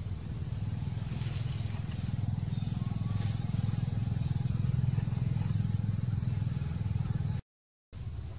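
An engine running steadily with a low, even hum. It breaks off for about half a second near the end.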